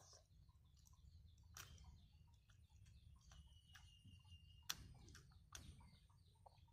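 Near silence, broken by a few faint clicks of chopsticks against a small ceramic bowl during eating. The sharpest click comes a little past two thirds of the way through.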